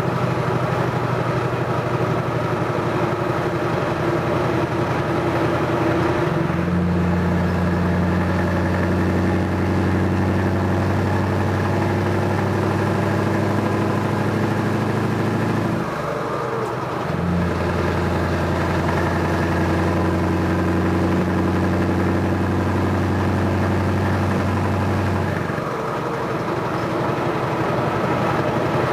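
Scania 580 V8 diesel truck engine pulling steadily, heard from inside the cab, a deep even note that steps up once early on. The note breaks off briefly twice, about halfway and near the end, before picking up again.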